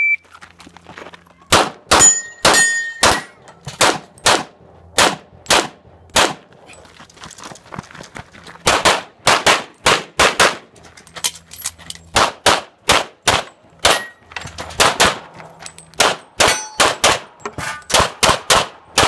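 A shot timer beeps once to start, then a semi-automatic pistol fires in rapid pairs and strings with short pauses, dozens of shots in all. Struck steel targets ring after some of the hits, about two seconds in and again near the two-thirds mark.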